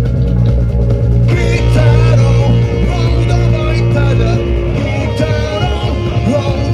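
Rock band playing live, loud, over a steady heavy bass; about a second in, a lead guitar line with bending, wavering notes comes in on top.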